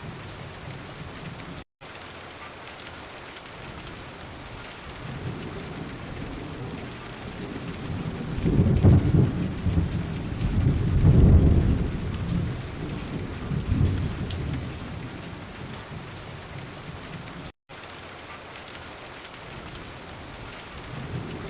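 Heavy rain falling steadily on a car's windows, with a low rumble of thunder that swells about eight seconds in, peaks twice and fades a few seconds later. The sound cuts out for an instant twice.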